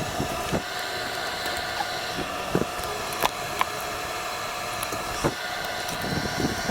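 A steady machine hum in the shop background, with a few light clicks and knocks of small metal engine parts, roller lifters, being handled.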